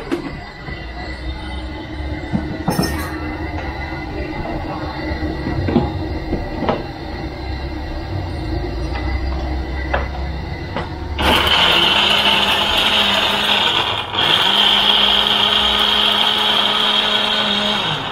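Countertop electric blender running at full speed, a loud steady whine as it purees yellow chillies and prik chinda chillies with a little water. It starts abruptly about eleven seconds in, stops for a moment about three seconds later, then runs again until it cuts off. Before it starts there is a low hum with scattered clicks and knocks.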